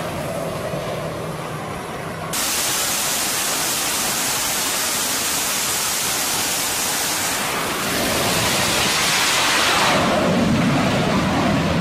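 Twin jet engines of an F/A-18 fighter on a carrier flight deck running at high power: a loud, steady roar that starts abruptly about two seconds in.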